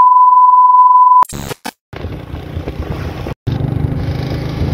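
A loud, steady test-pattern beep, one held pitch, cutting off sharply about a second in, then a brief glitchy crackle. After that comes a steady low rumble of wind and traffic noise from riding along a street, with a short dropout a little past halfway.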